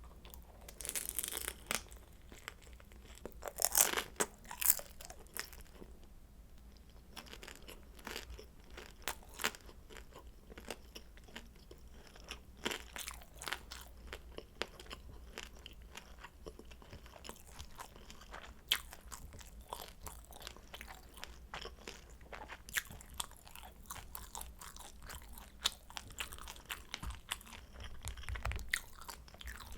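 Close-miked crunching and chewing of pan-fried kimchi dumplings, a dense run of crisp crunches, the loudest in the first few seconds.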